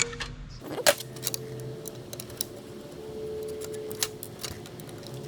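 Light metallic clicks and clinks of metal avionics rack parts being handled, with one louder knock about a second in, over faint background music.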